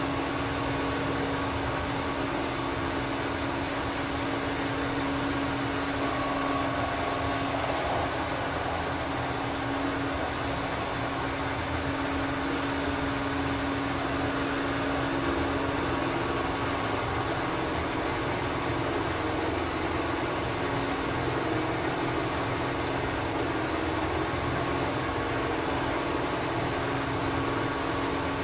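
Bridgeport vertical milling machine running steadily on its variable frequency drive, a constant motor hum with one held tone, while the end mill is fed around the workpiece to cut its final shape.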